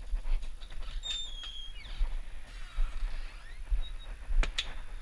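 A house door being opened and walked through: short high squeaks about a second in, a longer hinge creak, footsteps and low handling rumble, then two sharp knocks near the end.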